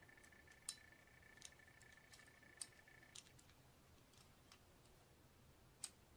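Near silence with a few faint, sharp clicks spread through it, and a faint steady high whine that stops about three seconds in.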